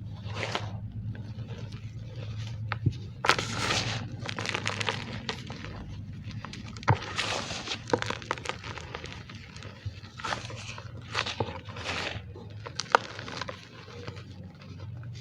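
Gym chalk mixed with cornstarch being squeezed and crumbled by hand, giving squeaky crunches in irregular bursts with a few sharp cracks.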